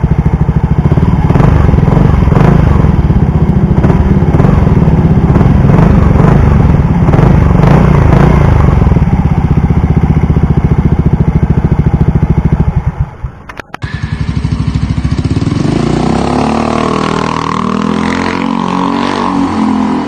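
Yamaha Mio i125s scooter's single-cylinder engine through an Apido V3 aftermarket exhaust, revved repeatedly with throttle blips, the pipe's note rising and falling. It cuts off about 13 seconds in.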